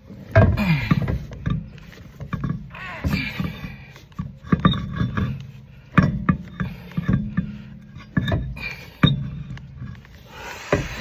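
Irregular metal clunks, knocks and scraping as a heavy spare wheel is lifted and worked onto a van's wheel hub.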